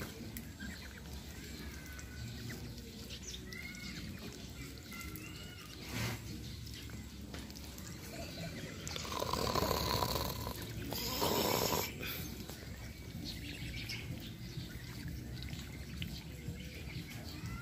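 Birds chirping now and then over outdoor background noise, with a single knock about six seconds in and a louder noisy stretch lasting about three seconds past the middle.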